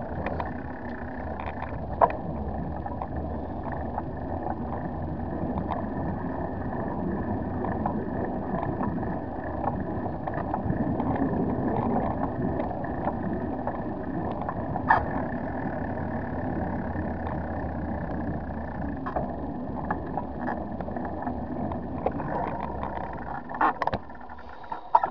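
Bicycle ride on a paved cycle path: a steady rolling and rattling noise with a few sharp knocks from bumps, dropping off near the end.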